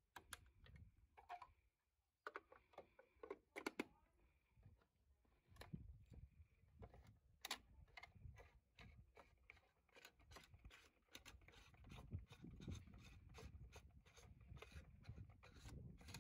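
Faint plastic clicks and knocks from handling a Lab-Box daylight developing tank as 120 film is loaded onto its reel, with its lid being fitted and its winding knob being turned. The clicks come closer together in the second half.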